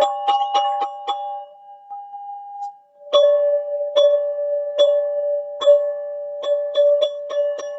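Teal ZenTube struck in quick repeated strokes, each ringing on the same two chime-like tones. The strikes stop about a second and a half in, the ring fades, and they start again around three seconds, quickening toward the end.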